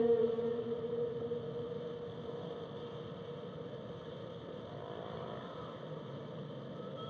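A long, steady-pitched whale call fades out over the first second or two. It leaves a steady underwater hiss, with faint, distant whale calls about five seconds in and again near the end.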